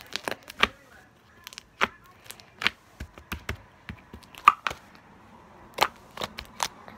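Crunchy bead slime being squeezed and poked by hand, giving a scattered run of sharp crackles and clicks as the beads inside pop and shift.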